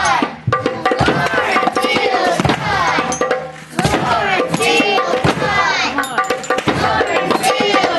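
A group of children's voices singing and calling out together over drums and hand percussion played freely.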